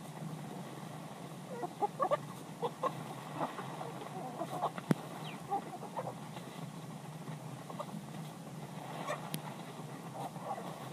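Chickens clucking in short, irregular calls over steady low background noise, with one sharp click about five seconds in.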